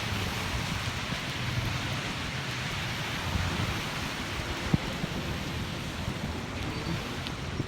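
Steady rain falling, an even hiss, with irregular low rumbling from wind on the microphone.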